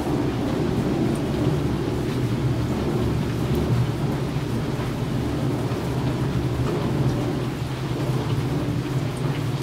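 Steady rain with a continuous low rumble of thunder, and faint drop ticks over the top.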